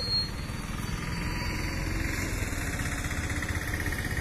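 An engine running steadily with a low rumble, with one short knock just after it begins.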